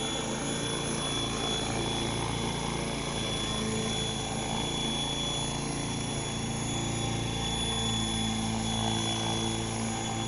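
Radio-controlled model helicopter hovering and flying low, its motor and rotor blades running with a steady drone and a thin high whine.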